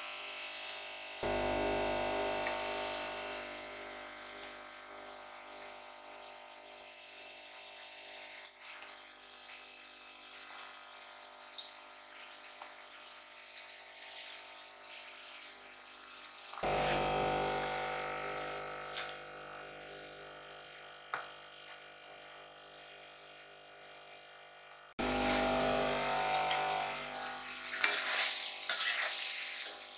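Cornflour-coated chicken pieces frying in hot oil in a pan, a steady sizzle. It jumps suddenly louder three times, about a second in, just past halfway and near the end, and eases off after each.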